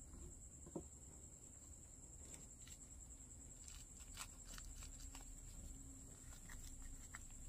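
Near silence with faint scattered clicks and crinkles: hands setting pruning shears down on a wooden board, then gripping and squeezing a thin plastic nursery pot.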